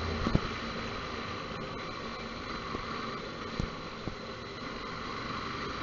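Motorcycle under way: a steady mix of engine hum and wind and road noise, with a few faint clicks.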